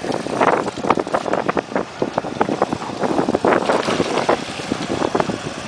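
Wind buffeting the microphone and water splashing against a small fishing boat, with irregular splashes as a hooked fish thrashes at the surface.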